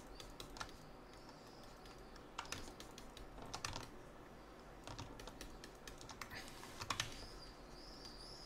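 Faint computer keyboard clicking: short clusters of a few key presses, several times over.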